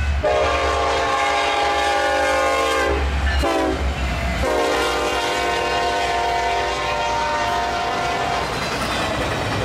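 Locomotive air horn sounding a long blast, a short blast, then a second long blast, several notes at once, over the low rumble of the passing train.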